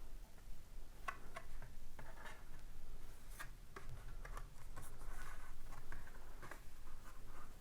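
Handling of a CD digipak and its discs: a scatter of small, light clicks and ticks with soft rustling of cardboard and plastic between them.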